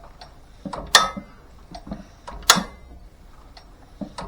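Sharp metallic clacks: two loud ones about a second and a half apart, with fainter ticks between them, like metal parts being handled or knocked while working on an old engine.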